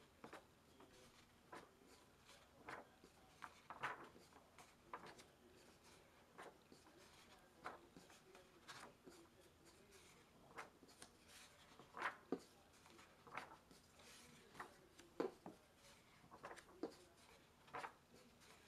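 Sketchbook pages being turned and handled: quiet, irregular paper rustles and soft taps, about one a second.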